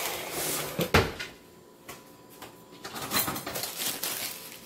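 Kitchen drawer and metal cutlery rattling while someone searches for a fork, with a sharp knock about a second in and a run of clatter near the middle.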